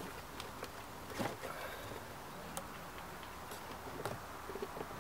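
Scattered light plastic clicks and knocks of hands working the rubber intake duct and plastic air filter housing of a Volvo S80 D5, with one louder knock a little over a second in.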